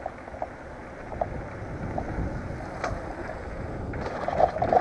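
Mountain bike rolling over paved ground with wind on the bike-mounted microphone, with scattered light ticks. Near the end the bike rattles and knocks as it drops down a short flight of concrete steps on its air-sprung suspension fork.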